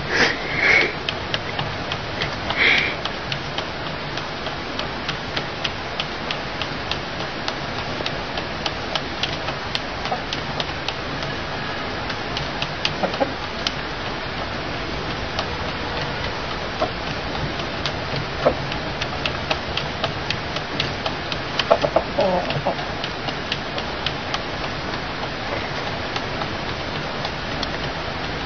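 Bicycle wheel turning under a rooster's feet, giving a steady run of light ticks, with a few short louder sounds near the start and about 22 s in.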